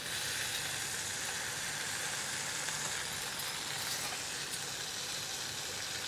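Butter sizzling steadily in a hot pan on the stove as garlic is pressed into it.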